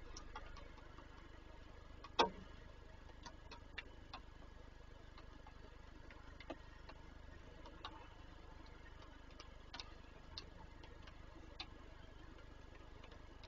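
Raindrops tapping on the nest box: scattered, irregular ticks with one louder knock about two seconds in.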